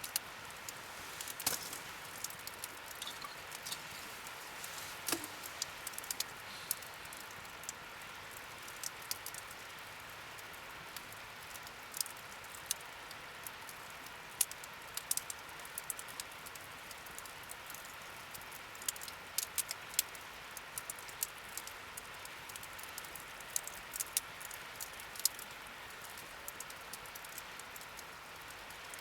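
Wood fire crackling in a fire pit: irregular sharp pops and snaps over a steady low hiss.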